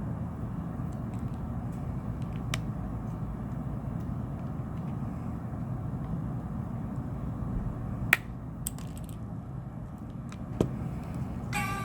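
A few sharp plastic clicks as picks work around the clips of a phone's back cover, the loudest about eight seconds in, over a steady low hum. A tune of several steady tones begins just before the end.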